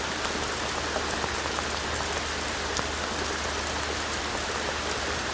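Heavy rain falling steadily, with many small drops pattering close to the microphone.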